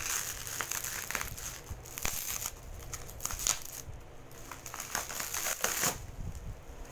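Plastic packaging wrap crinkling and rustling as it is handled and pulled off a container by hand, with many small sharp crackles. It dies away about six seconds in.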